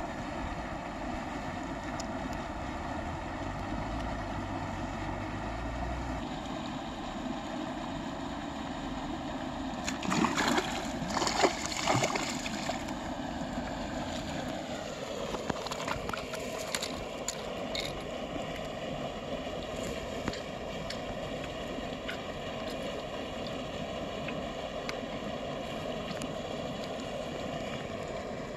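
Water splashing in several sharp bursts for about three seconds, starting some ten seconds in, as a hooked fish thrashes at the surface. Under it runs a steady background noise with held tones.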